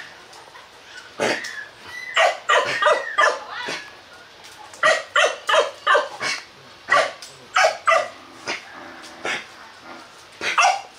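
H'Mong bobtail dogs giving short, sharp barks and yips in quick clusters of several at a time as one snaps at the other.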